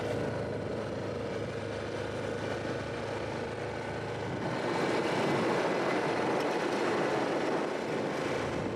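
Car driving along, a steady rush of tyre, road and engine noise that grows a little louder about halfway through.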